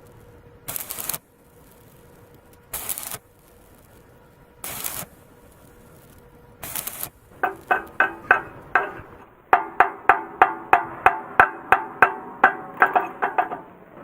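Four short bursts of hiss, each about half a second long and two seconds apart. From about halfway, percussive music with fast wood-block-like strikes takes over.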